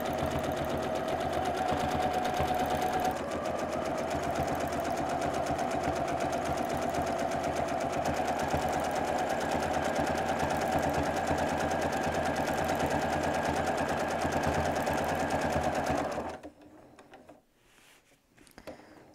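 Domestic sewing machine running steadily during free-motion quilting, its needle stitching in a rapid, even stream, then stopping near the end.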